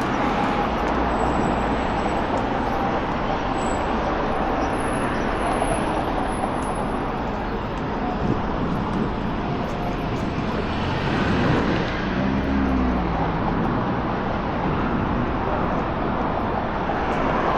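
Steady road traffic on a busy city street: a constant wash of passing cars and engines. About twelve seconds in, one vehicle's engine note rises and falls briefly.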